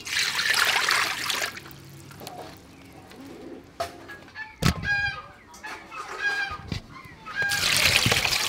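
Water poured into an aluminium wok at the start, then chickens clucking several times in the middle. Near the end there is water splashing and sloshing as hands rub and wash in a water-filled pan.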